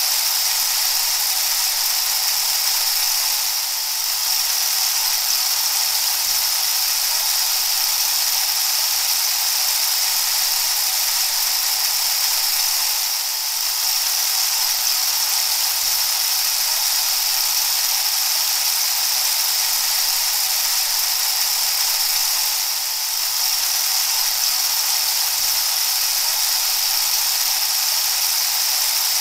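A steady, even hiss with no ringing tones in it, dipping slightly and briefly about every nine to ten seconds.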